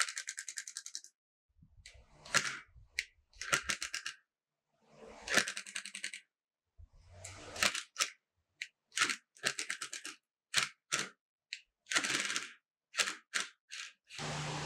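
Cordless impact driver hammering in repeated short bursts of rapid clicks, working the screws that hold a bench vise's steel jaw plate; the bursts get shorter toward the end.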